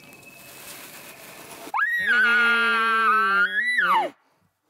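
Bull elk bugling: a faint distant bugle at first, then a loud bugle about two seconds in. The loud call rises into a high whistle held for about two seconds over a deep growl underneath, then drops away.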